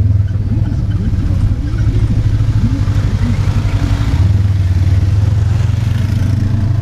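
Polaris side-by-side UTV engine running at low trail speed, a steady low drone that steps up slightly about four seconds in as the throttle is opened.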